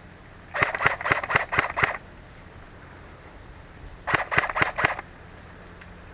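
Airsoft gun firing two quick strings of sharp shots, about four a second: six shots, a pause of about two seconds, then four more.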